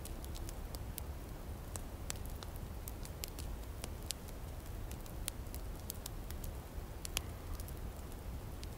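Wood campfire crackling, with irregular sharp pops, over a low background rumble.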